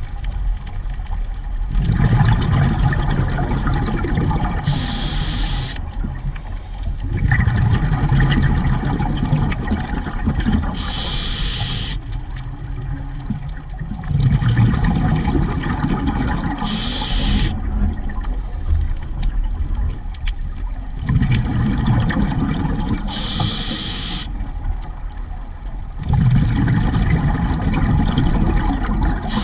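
Scuba diver breathing through a regulator underwater: a short hiss on each inhale about every six seconds, each followed by several seconds of gurgling, bubbling exhaust from the exhale.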